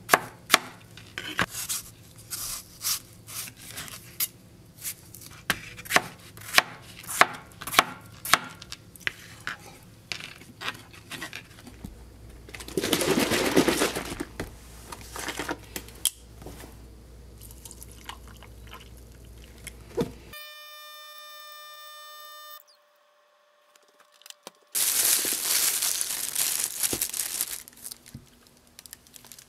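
Kitchen knife chopping melon on a plastic cutting board, the blade tapping the board one or two times a second. Near the middle comes a brief rushing noise and later a steady tone lasting about two seconds. Near the end a plastic bag is crinkled loudly as it is opened.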